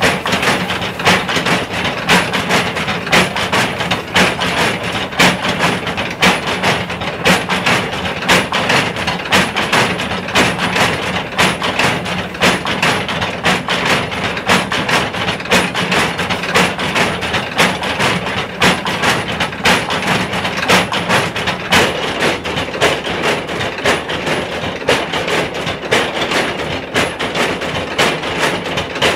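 Motor-driven multi-pestle pounding mill working steadily, its row of pestles knocking down into mortars of red chili powder in a fast, even clatter, a few heavy beats a second like a train on rails, over a steady motor hum.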